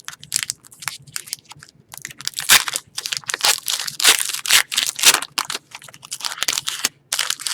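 Hockey card pack being torn open by hand, the wrapper crinkling and tearing in a dense run of crackles, thickest in the middle.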